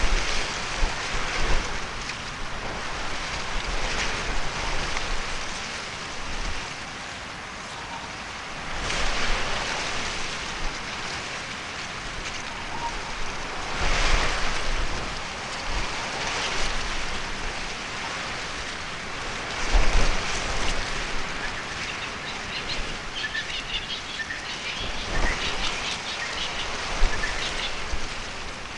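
Steady rain falling, its hiss swelling and easing in surges every few seconds, with small bird chirps over it near the end.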